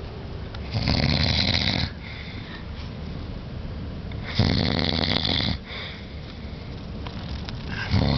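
A man snoring in his sleep: three loud snores, each about a second long and roughly three and a half seconds apart, with quieter sound between them.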